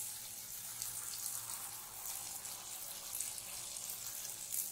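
Jalebi batter frying in hot oil and ghee in a wide pan: a steady sizzling hiss from the oil bubbling around the piped batter spirals.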